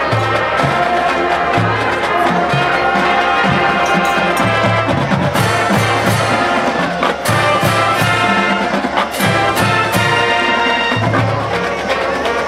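Marching band playing: brass chords over a pulsing line of low bass notes, with a run of sharp drum and cymbal hits through the middle.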